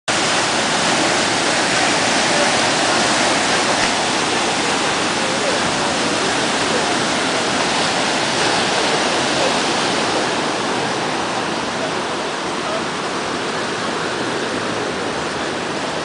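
Rough sea surf breaking and washing up a sandy beach: a loud, dense, continuous rush of water that eases slightly over the last few seconds.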